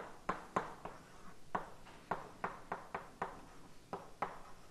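Chalk writing on a blackboard: an uneven run of short, sharp taps and scrapes, about a dozen in a few seconds, as each stroke of an equation is put down.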